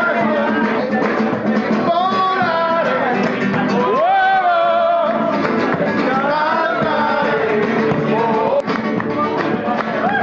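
Music: a singer holding long notes that waver in pitch, over guitar accompaniment.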